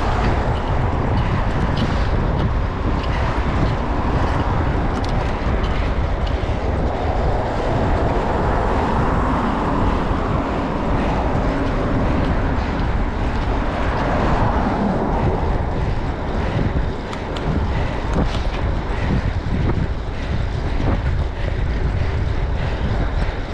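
Steady wind buffeting the microphone over a continuous low rumble.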